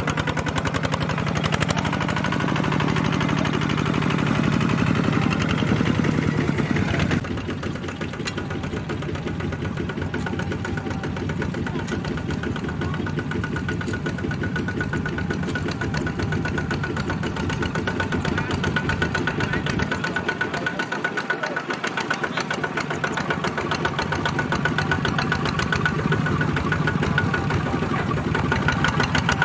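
Single-cylinder diesel engine of a Kubota two-wheel walking tractor running steadily with a fast, even firing beat as it pulls a trailer loaded with rice sacks. It gets a little quieter about seven seconds in.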